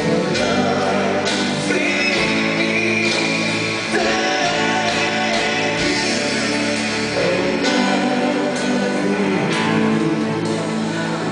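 Live band playing a song: a woman sings lead into a microphone over guitars and drums, with cymbal hits at a steady beat.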